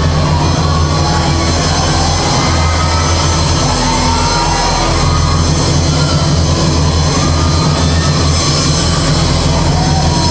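Background music with a steady low drone, held under the wait for the elimination decision.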